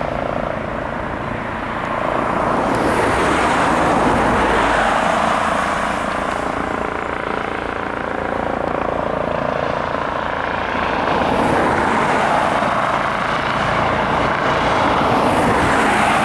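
Eurocopter EC135 twin-turbine helicopter running close by: a loud, steady rush of turbine and rotor noise that swells and eases a few times.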